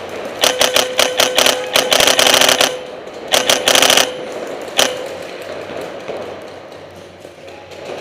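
Paintball marker firing rapid strings of shots: a long burst about half a second in, a shorter burst around three and a half seconds, and one last shot near five seconds.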